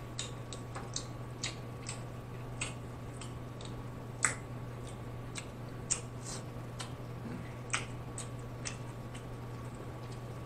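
Close-up eating sounds of crab meat: irregular wet clicks and smacks of chewing and handling, a few louder than the rest, over a steady low hum.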